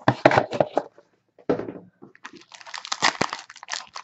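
Trading-card packs and cardboard being handled: crinkling of foil pack wrappers and rustling of cards and a box insert, in irregular short rustles with a brief pause about a second in.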